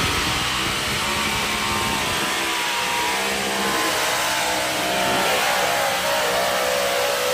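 Pulling tractor's engine at high revs under load, its pitch rising about four seconds in and holding.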